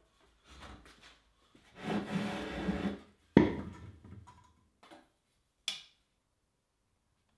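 A heavy square wooden block being handled: a rough wooden scrape lasting about a second, then a single loud thump as it is set down on the floor about three and a half seconds in. A few small ticks follow, the last a light metal click as a steel try square is laid against the block.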